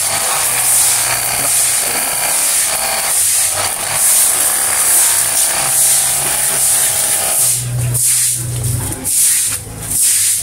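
Cordless battery-powered high-pressure washer spraying a jet of water onto a motorcycle wheel: a steady hiss of spray over the low hum of the pump motor. The spray breaks off briefly a few times near the end.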